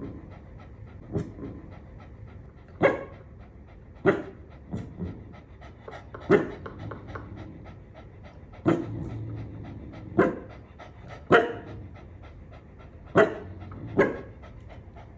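A pet dog panting steadily, with about ten short, sharp sounds spaced irregularly over it.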